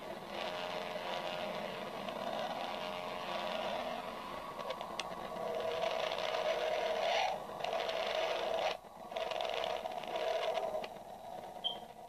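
Eerie, static-like space-audio drone presented as the sound of the planet Mercury: a steady hiss over a wavering hum, like a radio between stations, briefly dipping twice about three-quarters of the way through.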